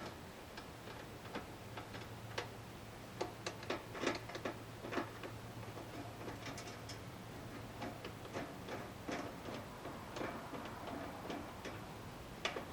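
Irregular light clicks and taps of a screwdriver and screws as the cover plate of an outdoor RV outlet box is unscrewed and taken off.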